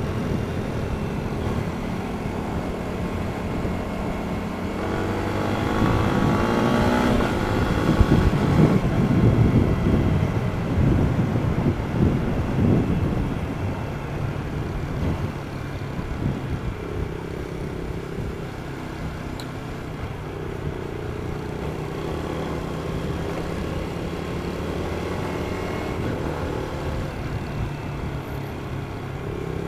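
Yamaha 150 cc single-cylinder underbone motorcycle on its standard exhaust, running steadily. It is revved up louder and higher for several seconds from about five seconds in, then settles back to a steady run.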